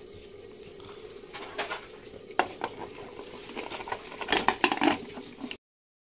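Aluminium pressure cooker and its lid being handled: several metallic clinks and clatters, busiest about four to five seconds in, as the cooker is closed to boil the vegetables, over a steady hum.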